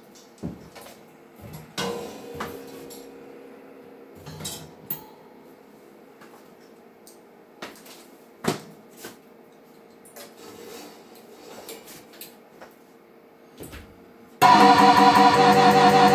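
Scattered clanks, taps and knocks of drum-kit hardware and a mounted tambourine being handled, with a faint ringing. About fourteen seconds in, loud gospel music starts suddenly and is the loudest sound.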